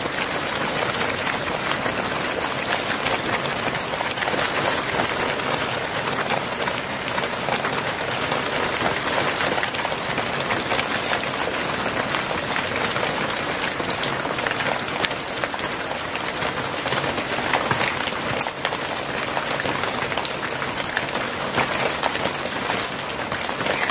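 Hail mixed with rain pelting wet ceramic floor tiles: a dense, steady patter of many small strikes.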